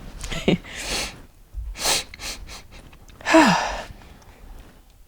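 A person coughing and gasping for breath, a series of short breathy bursts. The loudest comes a little past three seconds in and has a brief falling voiced edge.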